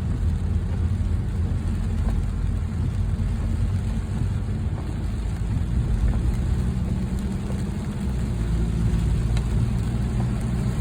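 Car driving along a road, heard from inside the cabin: a loud, steady, low rumble of road and engine noise.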